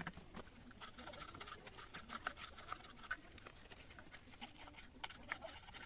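Small knife cutting and scraping a piece of wood by hand, a run of light, irregular clicks and scrapes, with one sharp knock right at the start.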